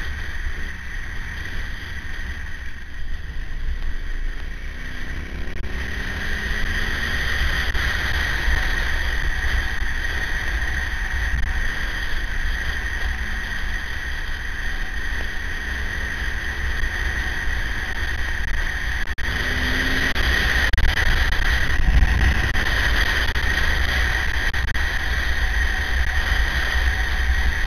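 Riding a KTM 950 motorcycle: a steady rush of wind rumble over the onboard microphone, with the engine faintly rising in pitch now and then under it.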